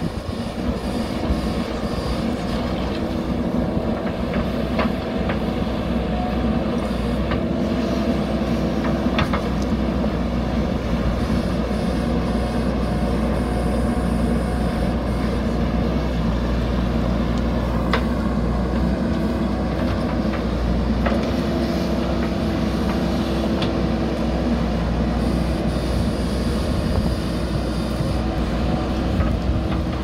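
JCB backhoe loader's diesel engine running steadily under load as the backhoe digs a trench, with a few sharp clanks from the bucket and arm.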